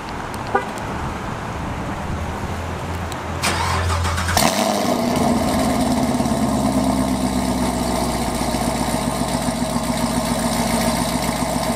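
Chevrolet Camaro SS 1LE V8 being remote-started: the starter cranks about three and a half seconds in, the engine catches with a brief flare about a second later, then settles into a steady idle.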